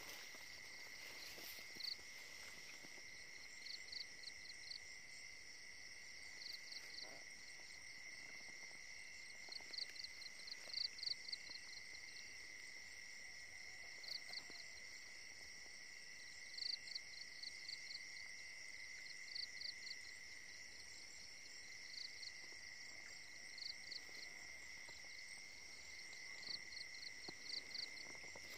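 Insect chorus: a steady high buzzing drone, with a cricket chirping in short runs of several quick pulses every few seconds.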